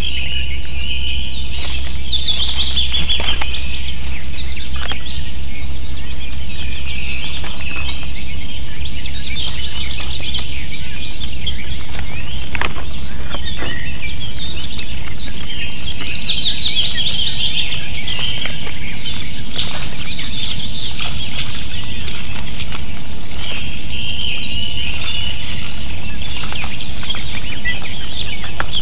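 Ospreys at the nest calling: repeated runs of rapid, high chirps that fall in pitch, every few seconds. A low steady hum runs under them and weakens about halfway through.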